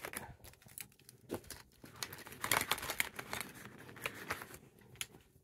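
Handling noise of a plastic zip pouch and the small toiletries in it being put back: irregular rustling, crinkling and light clicks, busiest around the middle.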